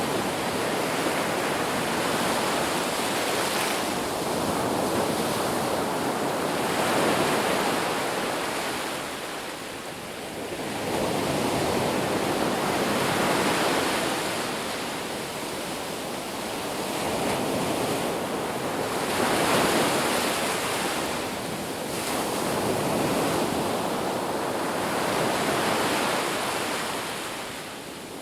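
Ocean surf on a beach: waves breaking and washing in as a steady rush, swelling and easing every four to six seconds.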